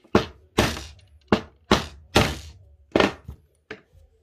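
A soft-faced mallet knocking a tool wedged under the tab of a lithium battery cell, about six sharp knocks over three seconds, to pry the tab off the cell.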